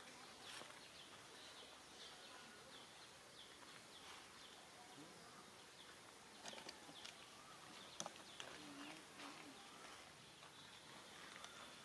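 Near silence: faint outdoor ambience with small high chirps from birds or insects, and a few light clicks and rustles, the sharpest about eight seconds in.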